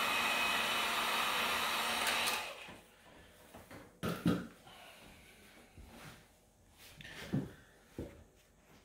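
Heat gun blowing hot air steadily onto a model engine's crankcase to warm it for pressing in new bearings, with a faint fan whine in the rush. It is switched off about two and a half seconds in. After that come a few light knocks of the engine being handled on a table.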